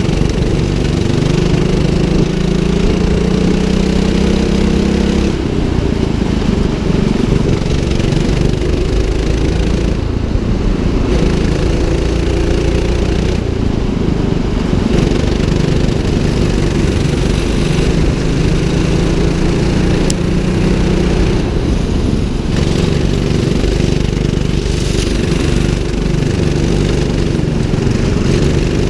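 A 200cc rental go-kart engine running hard on a lap, heard from the driver's seat. Its pitch climbs as the kart accelerates and drops off when the throttle is lifted, several times over.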